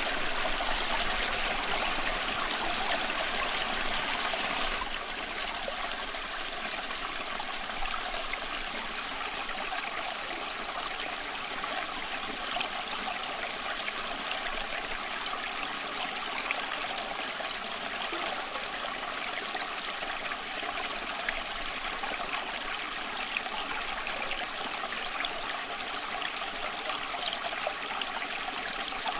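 A small creek flowing steadily, its water rushing and trickling with small splashes. It is a little louder for the first five seconds, then settles to an even level.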